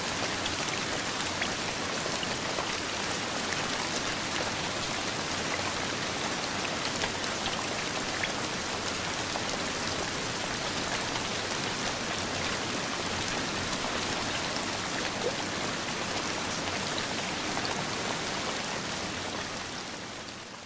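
Steady rain sound effect built from several layered library rain recordings, including rain falling on a wooden boardwalk, with scattered individual drops ticking through the wash. It fades out near the end.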